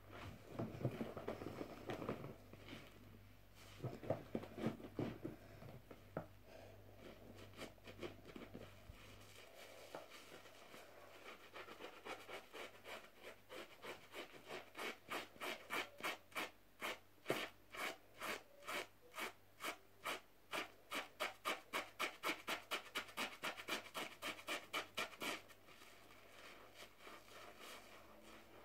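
Wet, soapy bath sponge squeezed and squished in foam, then fingers scratching rapidly over the wet sponge's surface in an even run of about three strokes a second, stopping shortly before the end.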